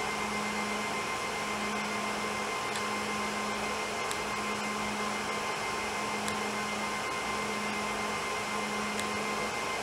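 Steady fan-like whirring room noise with a constant hum, broken by four faint clicks.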